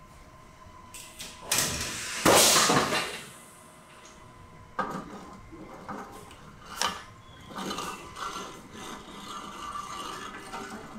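Helmet-testing rigs being worked by hand: a loud noisy burst about two seconds in that fades over about a second, then a string of clanks and clicks as the metal fittings are adjusted.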